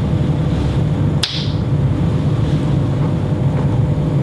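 A single finger snap, one short sharp click about a second in, made at the open end of a Perspex tube as the timing pulse for a speed-of-sound echo measurement. A steady low hum runs underneath.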